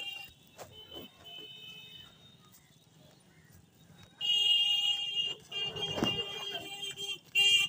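Vehicle horn sounding in long, loud blasts, starting about four seconds in after a few quiet seconds of faint street noise.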